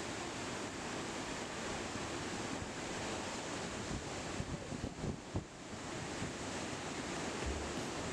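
Sea surf washing over a rocky shore, a steady rush of noise that swells and dips a little, with wind on the microphone.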